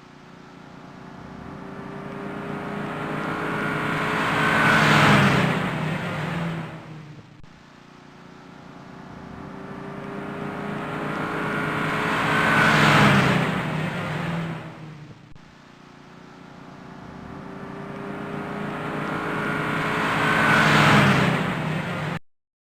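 A VW Beetle driving past, heard three times over. Each pass builds for about five seconds to a loud peak as the car goes by, then fades away. The passes are joined by abrupt cuts, and the sound stops suddenly near the end.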